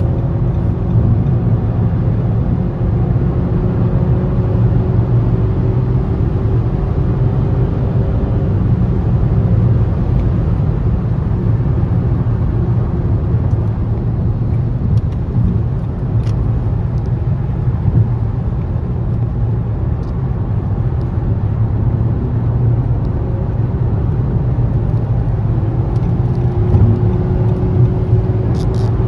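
2017 Nissan Rogue Sport with its MR20DD engine being driven: steady engine and road noise under a faint hum that drifts slowly in pitch. The engine is running on a newly fitted VIN J relay, the fix for its P0626 crank-no-start fault.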